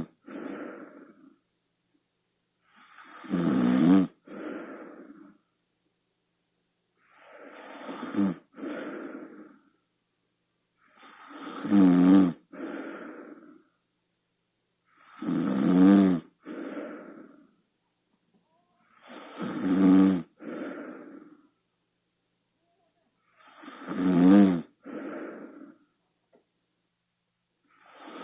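A sleeping person snoring steadily, one snore about every four seconds. Each snore is a rattling buzz that swells and breaks off sharply, then a shorter, softer breath, with silence between snores.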